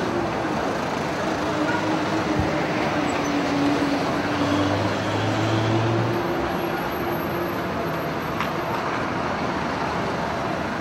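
Street traffic noise: vehicle engines running under a steady hiss of a busy road, with one engine's note dipping near the start and then holding steady.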